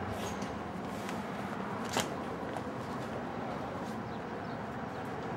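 Steady background room noise with a few light clicks and one sharper click about two seconds in.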